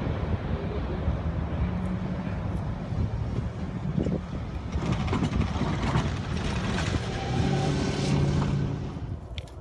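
Cars, a van and a pickup truck driving across a railroad grade crossing, engines and tyres passing close by over a steady low rumble, with a few knocks as tyres cross the rails.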